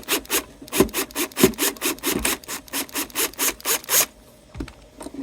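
A screw being backed out of a vintage Silvertone guitar's wooden body with a screwdriver: a quick series of rasping squeaks, about five a second. They stop about four seconds in, followed by a soft knock or two.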